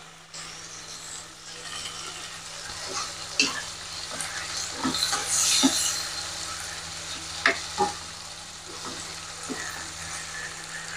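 Vegetables sizzling in a nonstick wok while a spatula stirs and scrapes through them, with a few short sharp knocks of the spatula against the pan.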